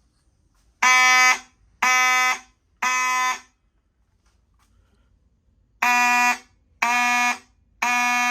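Simplex fire alarm horns sounding in the code 3 (temporal-three) evacuation pattern: three buzzy half-second blasts about a second apart, a pause, then three more. This is the 4002-style code 3 programmed on the home-built panel.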